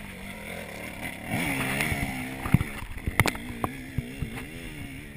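Enduro dirt bike engine revving up and down under load as it climbs a steep rocky slope, with several sharp clicks and knocks in the middle, typical of stones thrown up by the spinning rear wheel.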